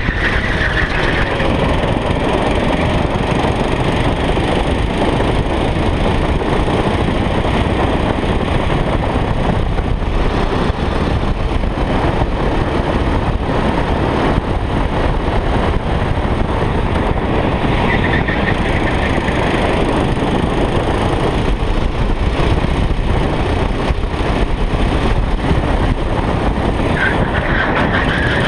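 Go-kart at speed heard from its onboard camera: the engine running under heavy wind rush on the microphone, with short high-pitched squeals near the start, about two-thirds of the way through and near the end.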